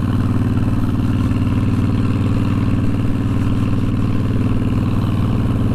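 Honda VTX1300 V-twin motorcycle engine running at a steady cruising speed while being ridden, with no change in revs.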